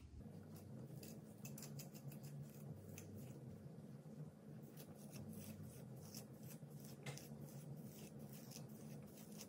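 Faint, scratchy crackling of dry coily hair being rubbed and pulled through with a wide-tooth plastic comb: an irregular run of tiny ticks.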